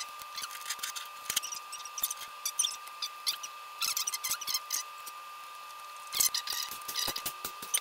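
Fast-forwarded workbench audio of screwdriver work: rapid, high-pitched chipmunk-like squeaks and ticks over a faint steady tone.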